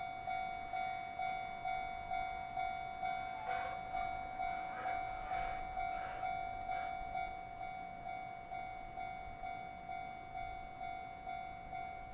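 Japanese level-crossing warning bell ringing, an evenly repeated electronic ding at a little over two strikes a second: the crossing signal for an approaching train. A few rougher, noisier sounds come in between about three and a half and seven seconds in.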